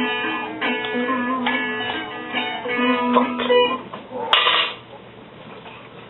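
Music with a plucked guitar playing picked notes, which stops a little under four seconds in. A short burst of noise follows, then low steady room noise.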